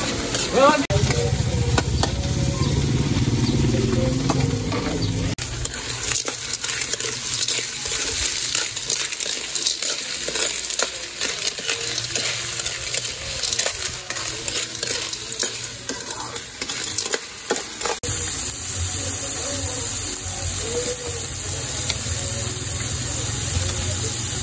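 Food being stirred in a cooking pot: a spoon scraping and clicking against the pot over a steady sizzle.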